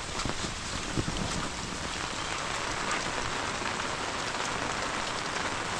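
Heavy rain falling steadily, with many sharp ticks of individual drops striking close surfaces.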